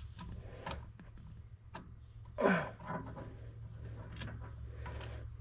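Small metallic clicks and ticks of snap-ring pliers working a snap ring inside the GM 10-bolt differential carrier, over a steady low hum. About two and a half seconds in there is a short falling vocal grunt.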